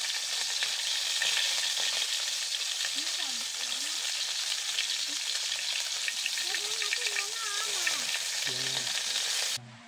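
Pieces of meat frying in a steel wok with a steady sizzle while being stirred with chopsticks; the sizzle cuts off suddenly near the end.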